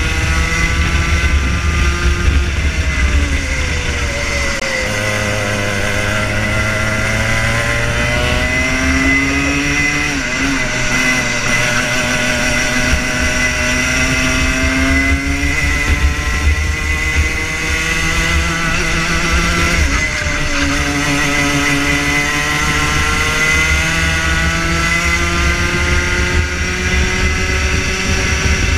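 Rotax Junior Max 125cc two-stroke kart engine at racing revs, heard onboard from the driver's own kart. The revs fall twice, a few seconds in and again about twenty seconds in, as the kart slows for corners, then climb again on the straights.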